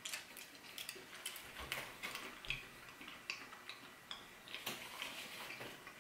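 Quiet eating sounds: faint, irregular clicks and taps of a metal spoon on a paper plate, along with chewing.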